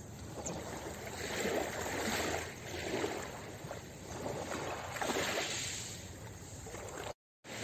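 Small, gentle sea waves lapping and washing onto a pebble shore, swelling and falling back every second or two. The sound cuts out briefly near the end.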